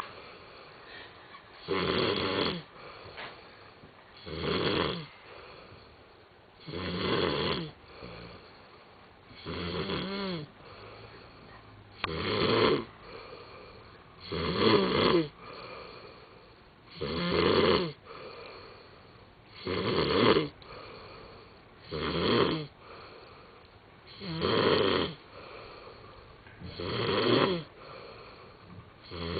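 A man snoring heavily in his sleep, one long rasping snore about every two and a half seconds with quieter breathing between them.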